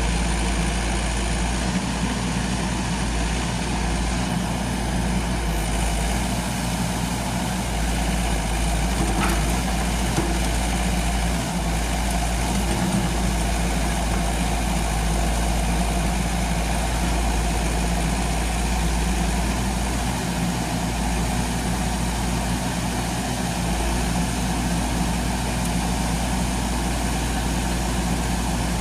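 Yanmar ViO80-1A mini excavator's diesel engine running at a steady speed while the boom, arm and bucket are worked.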